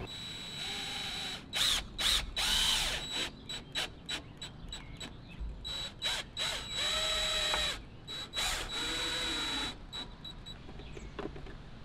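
Cordless drill driving deck screws through a plastic post-cap base plate into a wooden deck post: four or five short runs, the motor whine rising and falling with each run, with short clicks in between.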